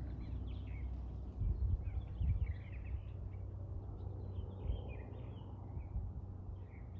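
Songbirds chirping over a steady low rumble from a high-flying aircraft overhead. A few low buffeting bumps hit the microphone about one and a half to two and a half seconds in.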